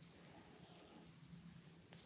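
Faint swishes of hands sliding over skin during a back massage, over a low steady hum.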